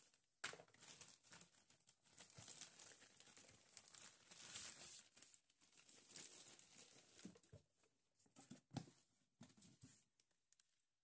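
Thin plastic wrapping rustling and crinkling as it is pulled out of a box, then a few soft knocks and clicks of handling near the end.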